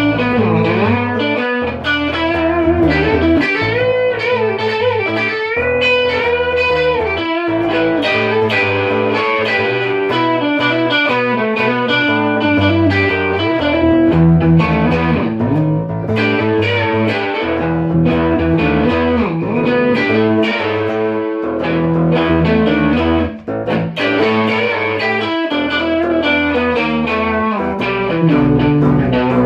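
Instrumental music led by an electric guitar playing sustained lead notes with pitch bends, over a steady bass line.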